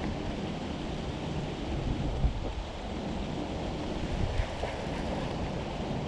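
Wind buffeting the microphone, a steady low rumbling noise, with one brief bump about two seconds in.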